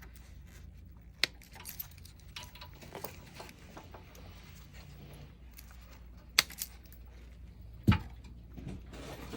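Hand tools and electrical wires being handled while motor leads are cut and joined: scattered light rattles and ticks, with sharp clicks about a second in, twice around six and a half seconds, and once near eight seconds, over a low steady hum.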